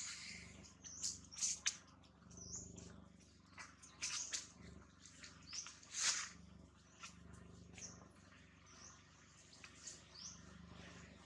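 High-pitched animal chirps and squeaks, a dozen or so short calls scattered irregularly, the loudest about six seconds in.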